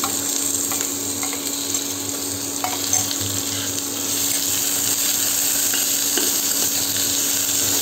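Sliced onions and green chillies sizzling as they fry in hot oil with mustard seeds and dals, with a metal spatula stirring and scraping the pan now and then. A steady low hum runs underneath.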